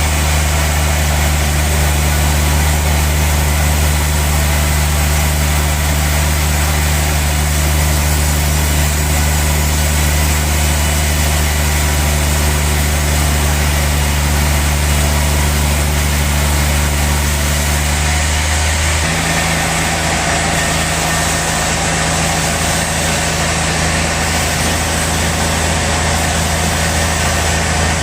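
Sawmill saw running through a large log: a steady machine hum under a dense hiss of cutting, with the hum shifting up slightly in pitch about two-thirds of the way through.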